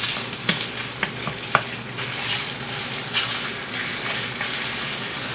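Loose sausage meat sizzling in hot oil in a cast iron skillet as it starts to render its fat, a steady hiss with a few sharp ticks as a spatula works it.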